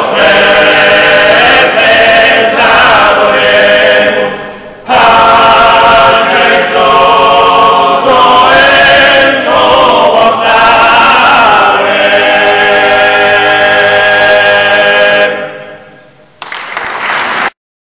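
Sardinian cuncordu: unaccompanied men's voices singing together in close harmony. A phrase ends about four seconds in and the voices come straight back in; near the end they fall away and the sound cuts off abruptly.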